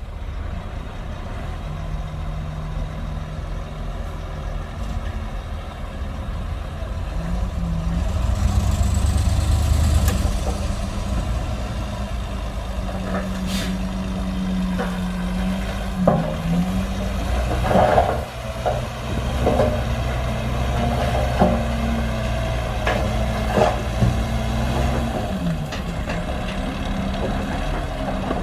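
Heavy diesel engines of earthmoving machinery running hard. The engine note rises about seven seconds in and shifts pitch several times. A string of sharp knocks comes in the second half.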